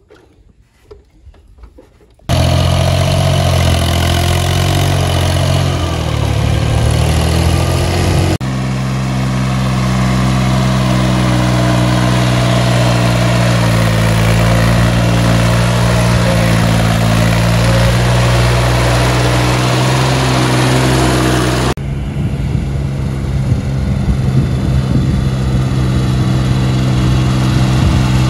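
VST Mitsubishi Shakti VT 224 mini tractor's diesel engine running steadily while it tows a loaded trolley, its speed rising and falling slightly. The engine sound starts suddenly about two seconds in, after faint quiet, and its tone shifts abruptly twice.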